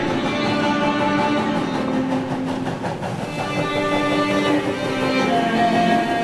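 Instrumental cello arrangement playing, with long held notes changing every second or so.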